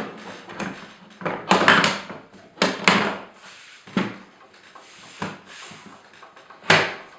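The case cover of an IBM IntelliStation POWER 285 workstation being slid back onto the chassis: a series of scraping clunks and knocks. The loudest, a longer scrape, comes about a second and a half in, with sharper knocks near three, four and five seconds and a last loud one near the end.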